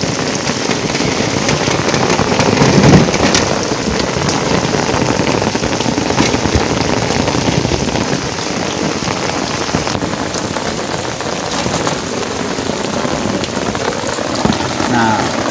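Steady rain falling and splashing on the ground and on the plastic pipes and tanks of an outdoor hydroponic rig, with a single louder thump about three seconds in.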